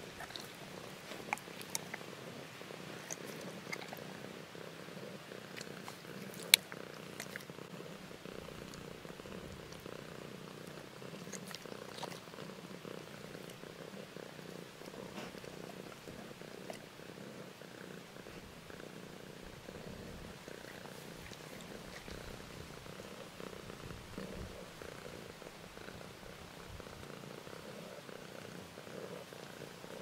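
Calico cat purring steadily while being stroked on the head and chin, a low, continuous flutter. A few sharp clicks sound in the first several seconds, the loudest about six and a half seconds in.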